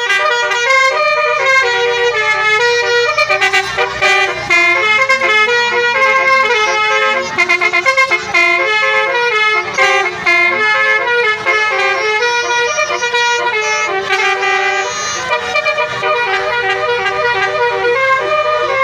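Bus "telolet" musical air horns playing a tune: several horn tones sound together and step from note to note in held chords, loud and without a break.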